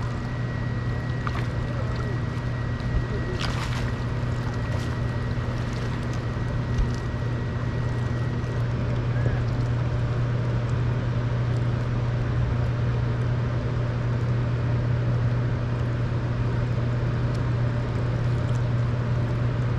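Boat motor running at a steady idle, a constant low hum, over water and wind noise. A thin high whine sounds for the first several seconds, and there are a couple of brief clicks.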